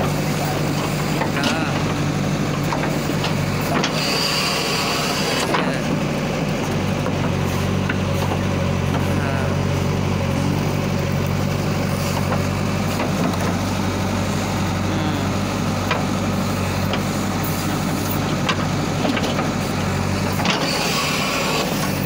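JCB backhoe loader's diesel engine running steadily at close range. Its note changes about four seconds in and again near the end, each time with a short hiss.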